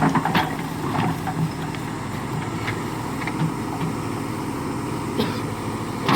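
The diesel engine of a backhoe loader or tractor running steadily, with a few sharp knocks near the start and again near the end.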